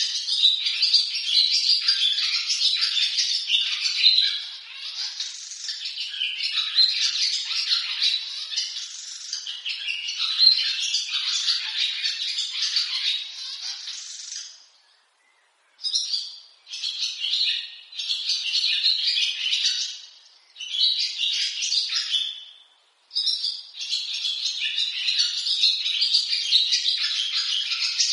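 Barn swallow song: fast, busy twittering and chattering. It breaks off completely for a second or so about halfway through, returns in a few short phrases with pauses between, then runs on steadily again.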